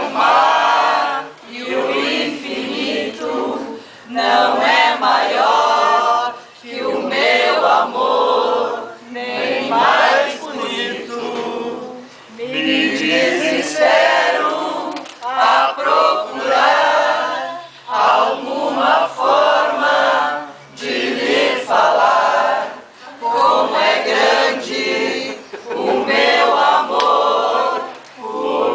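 Mixed group of men and women singing together in chorus from song sheets, in short phrases with brief breaks between them.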